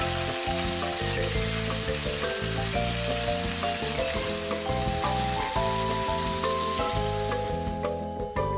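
Pork-belly-wrapped king oyster mushrooms sizzling in oil in a frying pan, under background music with a melody and a pulsing bass line. The sizzle fades out about eight seconds in, leaving the music alone.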